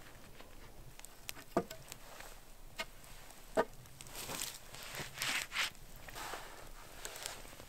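A few sharp knocks, two of them clearly louder and about two seconds apart, then a few seconds of rustling.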